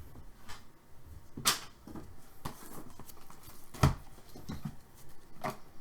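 Trading cards being handled on a table: a few short taps and slides, the loudest a sharp click about a second and a half in and a dull knock just before the four-second mark.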